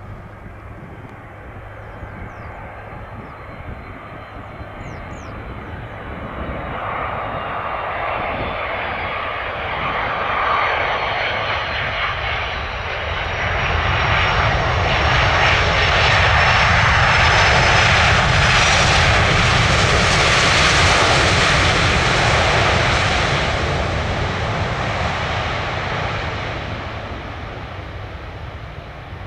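Twin-engine Boeing 767-300ER jet airliner passing by as it arrives to land. The engine noise and a faint high whine swell over about fifteen seconds, are loudest in the middle, then fade away.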